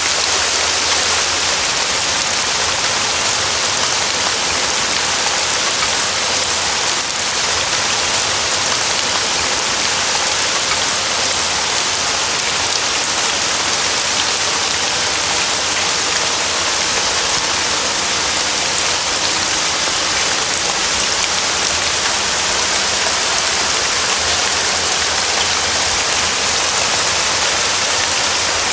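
Steady heavy rain falling on foliage and ground, an even continuous hiss of many drops.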